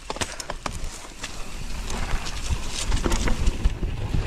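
Mountain bike on a rough dirt trail, clattering with many short knocks and rattles, over a low rumble of wind on the microphone that grows louder in the second half.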